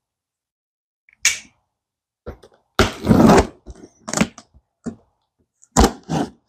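A cardboard shipping box being cut and opened by hand. There are scattered short knocks and scrapes on the cardboard, with one longer scraping, tearing noise about three seconds in.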